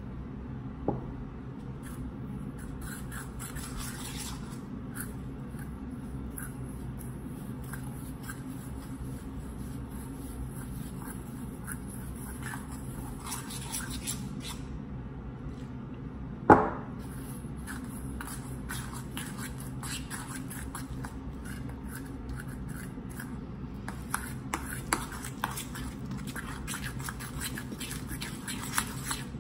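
A utensil stirring and scraping a stiff flour-and-water mix in a stainless steel bowl, with one loud metallic clank against the bowl about halfway through and a few sharp clicks near the end, over a steady low hum.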